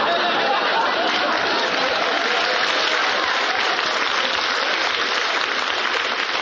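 Studio audience applauding and laughing in response to a joke's punchline.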